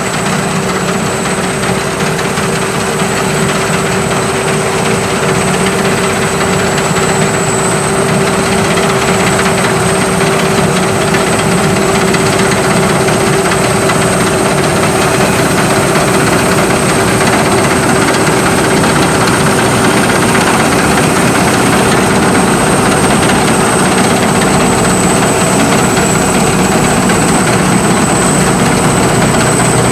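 Sakpattana SS-300 'Black Bird' combine harvester with its five-cylinder, 170-horsepower engine, running steadily. Its engine and machinery make a dense, even noise with a steady hum and a thin high whine on top.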